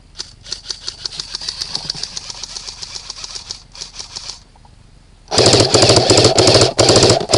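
Airsoft guns firing on full auto: a rapid, even stream of shots for about four seconds, then after a short pause a much louder stream close to the microphone, fired in several bursts with brief breaks.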